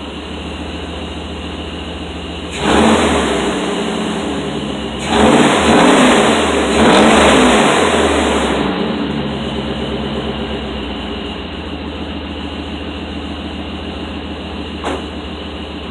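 Dodge Dakota pickup's engine idling, revved three times in quick succession a few seconds in, then easing back down to a steady idle. A single sharp knock near the end, a car door shutting.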